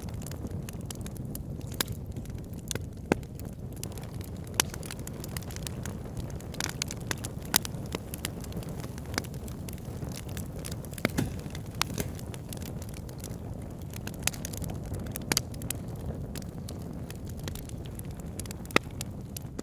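Wood fire crackling in a fireplace: a steady low rumble of burning with sharp, irregular pops and snaps, a loud one every second or two.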